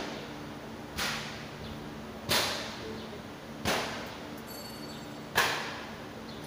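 Four sharp cracks, each fading in a short hiss, come at uneven gaps of about one to one and a half seconds over a steady low hum.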